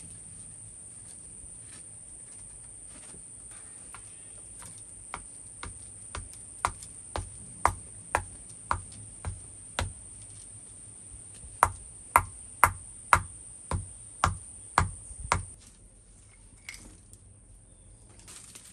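Glowing hot iron being forged flat with a hand-held stone hammer on a flat stone anvil: a run of about eighteen sharp, ringing blows, about two a second, with a short pause partway through. The iron is cast iron that has been decarburized to make it malleable enough to forge.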